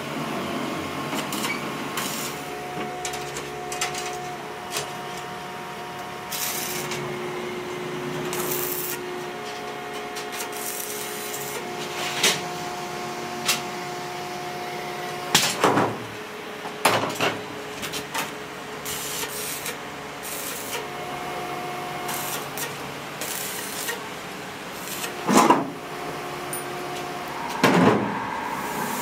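Workshop handling noise from steel wheelbarrow frames and cut plastic drums being fitted and moved: rubbing and scraping with scattered knocks. Four heavy knocks in the second half are the loudest.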